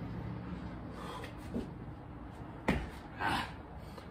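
A single sharp thump from a burpee on a concrete floor about two-thirds of the way in, followed by a hard breath out. A couple of fainter knocks come earlier.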